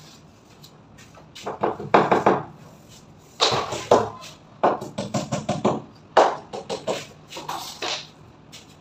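Quick bursts of knocks and taps on WPC (wood-plastic composite) slat wall panels being pressed and tapped into place by hand, several strikes in rapid succession in each burst.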